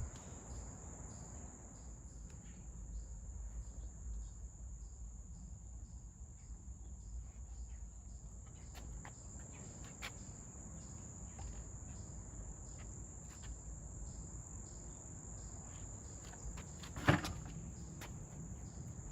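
Crickets trilling steadily in a high, even chirr over a faint low rumble, with a single sharp click near the end.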